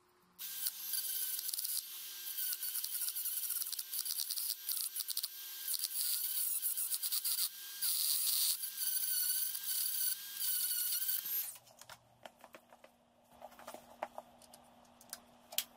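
A small handheld rotary tool running at high speed, its bit grinding on a metal ring terminal crimped to a red wire, with a steady high whine that dips slightly under load; it stops about eleven seconds in. A few light clicks follow.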